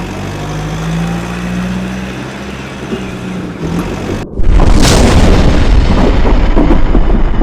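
Low, steady dramatic music, then about four seconds in a sudden loud boom that carries on as a heavy, noisy rumble, like a cartoon crash or explosion sound effect.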